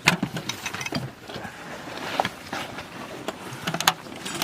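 Irregular sharp reports of gunfire on a machine-gun live-fire range: a handful of cracks at uneven intervals, the loudest near the start and just before the end, over a steady rumbling background.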